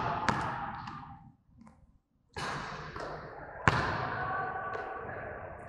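Sharp thuds that ring on briefly, one just after the start and a louder one about two-thirds of the way through, over a low background; the sound drops almost to nothing for about a second around the middle.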